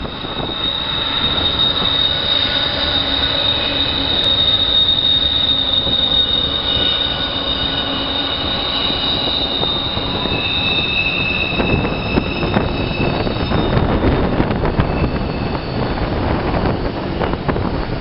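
A train running past with its wheels squealing in several high, steady tones that shift in pitch. Partway through, the rumble and clatter of the wheels on the rails grows louder.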